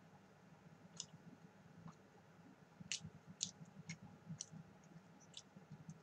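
Faint crunchy clicks of chewing a deep-fried cicada nymph: a handful of short, sharp crackles at irregular intervals, most of them from about three seconds in.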